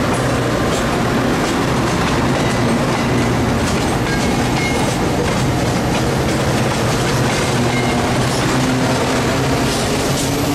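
MBTA commuter train passing at speed: coach wheels clicking over the rail joints, over the steady drone of the F40PH diesel locomotive pushing at the rear, which goes by in the second half.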